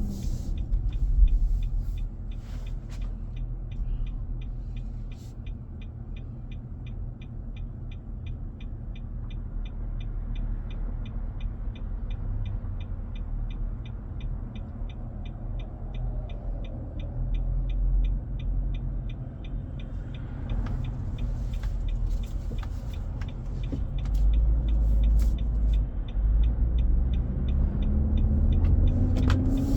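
Inside the cabin of a 2023 Nissan Armada while driving: a loud, steady low rumble from the engine's cooling fan with its fan clutch engaged, an abnormally loud noise that the dealer traced to the fan clutch. Fast regular ticking is heard for much of the first two-thirds. Near the end a rising engine tone comes in as the SUV speeds up.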